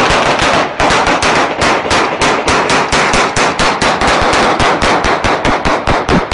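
Rapid, unbroken gunfire, about six or seven loud shots a second in a steady string.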